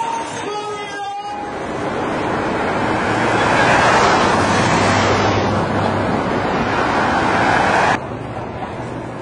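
Street traffic, with a van driving past close by: a rush of engine and tyre noise that swells to its loudest about four seconds in and stops abruptly near the end. A gospel choir is singing for the first second or so, before it is cut off.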